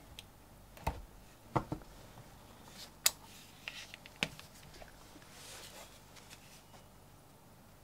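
Cast-iron hand press setting a metal fastener into leather: dull knocks of the lever and die about one and one and a half seconds in, followed by a couple of sharp clicks and the soft rustle of the leather piece being handled.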